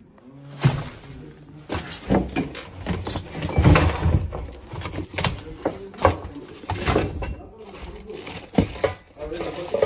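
Rummaging through clutter by hand: objects knocked and shifted with irregular knocks and rustling, loudest about four seconds in.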